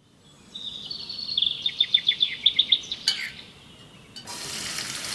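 A bird singing a quick run of high chirps over a held high note for about two and a half seconds. A sharp click follows, and about four seconds in a steady hiss of food frying in oil begins.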